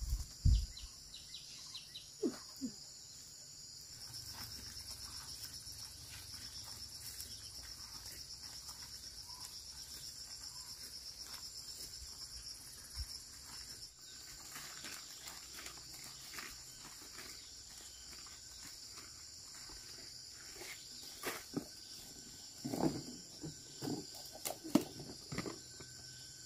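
Insects chirring in a steady, high-pitched pulsing drone, with a couple of dull thumps right at the start. In the second half there are scattered rustles, crinkles and light knocks from leaves and a plastic bottle being handled close by.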